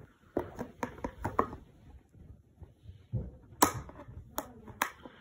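Cardboard and plastic packaging of an action-figure box being handled and pulled open: a string of sharp clicks and crackles in two bursts, one in the first second and a half and a louder one from about three to five seconds in.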